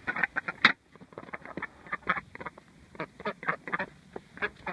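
Domestic ducks quacking, a run of short quacks one after another.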